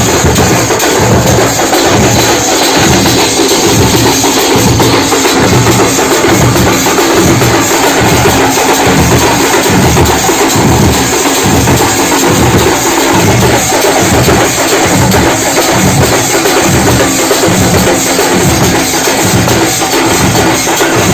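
Festival drums played with sticks in a steady, heavy beat of about two strokes a second, with a brighter clatter of percussion over it.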